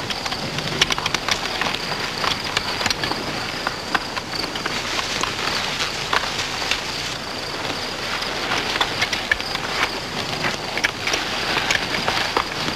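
Grain sacks being rummaged through: steady rustling with many small scattered clicks and crackles, over a constant hiss.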